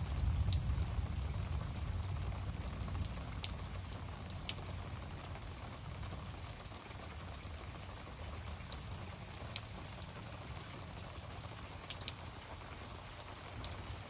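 Steady rain falling, with scattered individual drops ticking close by. A low rumble of thunder dies away over the first couple of seconds.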